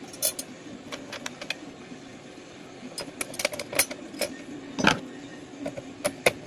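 Scattered metal clicks and clinks of a steel TV wall-mount bracket arm and a bolt with washers being handled and fitted against the back of a TV, with a louder knock about five seconds in. A low steady hum runs underneath.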